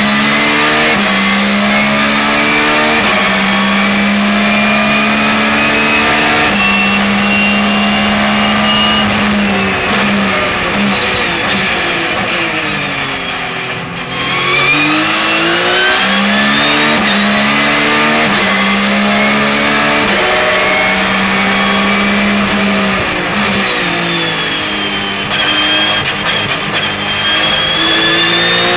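Porsche 911 GT3 R's flat-six racing engine heard from inside the car at full throttle, climbing in pitch with quick upshifts. It drops in pitch under braking and downshifts to a low point about halfway, pulls up through the gears again, and falls once more under braking near the end.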